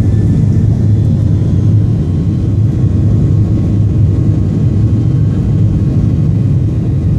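Boeing 737-800's CFM56-7B turbofan engines at takeoff thrust, heard inside the cabin over the wing during the takeoff roll: a loud, steady, deep rumble with a faint steady whine above it.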